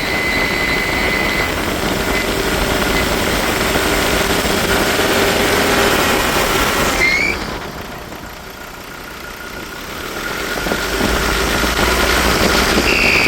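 Ford Endeavour diesel engine running loud with the bonnet open, dropping back about seven seconds in and then building up again as the accelerator is worked. It carries the harsh noise the mechanic is chasing; he says the alternator and its bearing are fine and the belt is not the cause.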